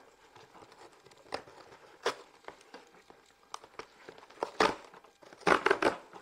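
Cardboard shipping box being opened by hand: rustling and crinkling with a few sharp rips of its flaps and tape, the loudest near the end.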